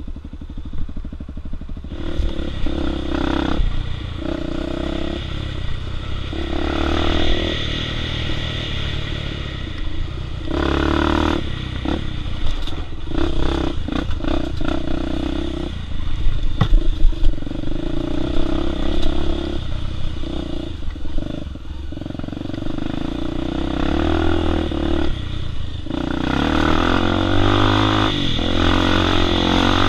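Four-stroke single-cylinder trail motorcycle engine, ticking over at first and then pulling away about two seconds in, revving up and down through the throttle and gears on a rough dirt track. Sharp knocks and rattles from the bike bouncing over ruts come through throughout.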